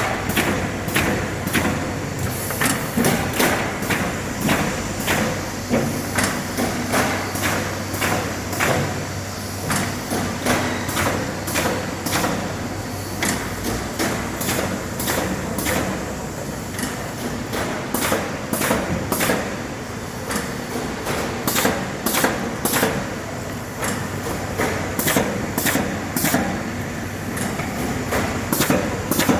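Automatic corrugated-carton partition assembler machine running: a steady low hum under a continuous train of sharp clacks, a few a second, as its mechanism cycles.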